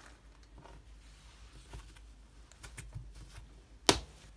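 Hands handling a cloth pad on a wooden table: soft fabric rustles and light taps, then the wing snap fastener pulled open with one sharp click near the end.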